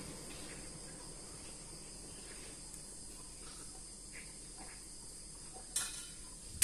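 Faint steady chirring of insects in the background, with a brief knock shortly before the end.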